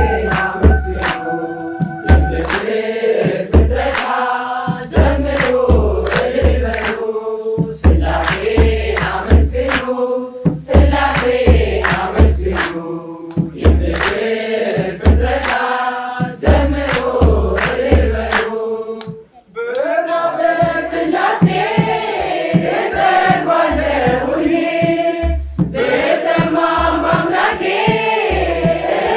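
Ethiopian Orthodox choir of men and women singing a hymn together, with hand claps and the deep beats of a kebero drum. The song breaks off briefly about two-thirds of the way through, then starts again.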